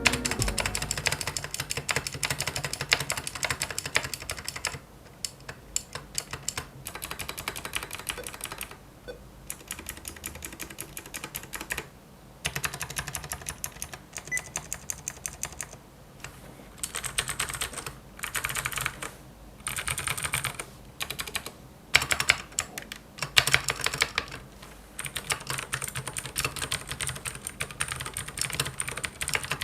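Typing on a Ducky One 3 TKL mechanical keyboard with clicky Cherry MX Blue switches: fast runs of sharp clicking keystrokes, broken every few seconds by short pauses.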